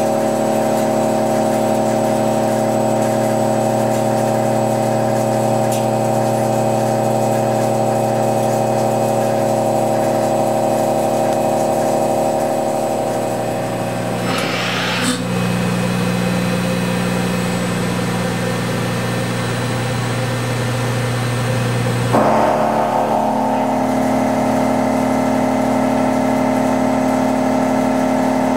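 A Brother TC225 BT30 CNC mill face milling medium carbon steel with a 2.5-inch six-insert face mill: a loud, steady droning tone of the cutter's inserts striking the steel on a deep, wide cut. About 15 s in there is a brief sharp scrape, and at about 22 s the tone changes abruptly.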